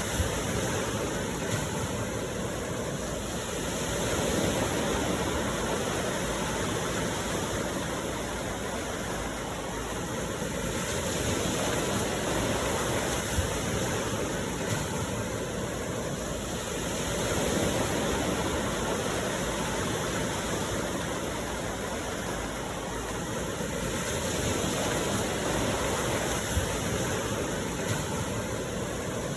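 Steady rain, a dense even hiss that slowly swells and eases every few seconds, with a few faint ticks of drops.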